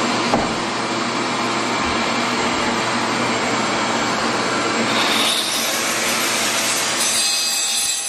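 A handheld diamond-blade power cutter cutting the cooktop opening in a Fantasy Brown stone countertop, with a vacuum held at the cut drawing off the dust. It makes a steady, loud grinding noise that gets a little brighter about five seconds in.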